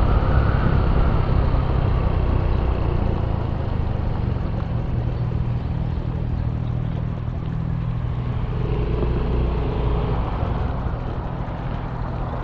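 Wind noise rushing and rumbling over a homemade external microphone on a GoPro, with the visor open while riding a motorcycle, and the motorcycle's running and road noise beneath it. This steady low rumble is the unwanted wind noise the homemade mic is meant to cut.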